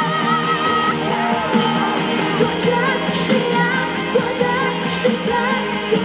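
Female pop singer singing live into a handheld microphone over pop music accompaniment. She holds a note with vibrato for about the first second, then sings on.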